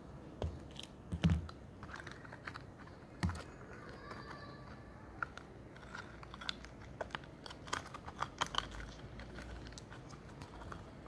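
Small plastic doll toys and packaging handled close to the microphone: irregular light clicks and taps, with heavier knocks about a second in and about three seconds in.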